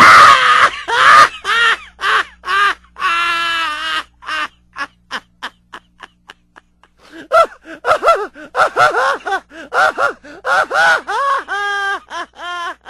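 A person laughing in loud, high-pitched bursts broken into rapid pulses. It thins to quick gasping breaths in the middle, then breaks out again.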